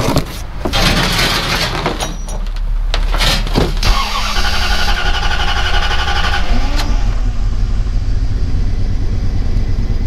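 Dodge Ram 1500's 5.2-litre Magnum V8 turned over on the starter from about four seconds in, catching and settling to a steady run around seven seconds. This is the first start after the fuel pump was replaced.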